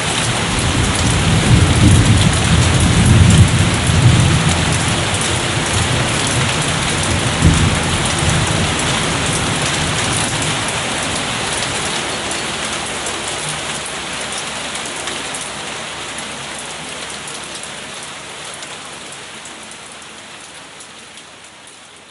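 Steady rain with distant thunder rumbling low through the first several seconds, with a sharper clap about seven and a half seconds in. The rain then fades out gradually.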